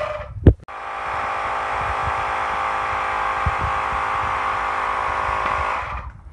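Electric tire inflator running with a steady buzzing drone as it pumps air into an inflatable pool. It breaks off briefly with a sharp click about half a second in, then runs on and cuts off near the end as its automatic shutoff stops it.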